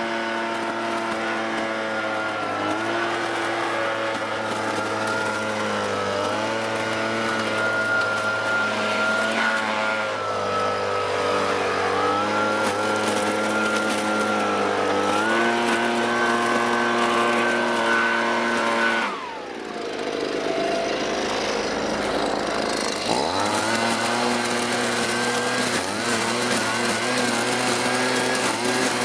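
Husqvarna 125BV handheld blower-vacuum's small two-stroke engine running at high speed while vacuuming fallen leaves. About two-thirds of the way through the engine speed drops sharply for a few seconds, then revs back up.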